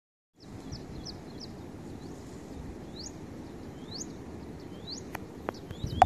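Outdoor ambience: a steady low rumble with birds giving repeated short rising chirps, a second or so apart. It starts about half a second in, and a few faint clicks come near the end.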